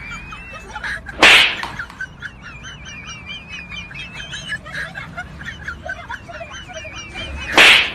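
A warbling, bird-like chirping whistle runs throughout, broken by two loud whip-like swishes, one about a second in and one near the end.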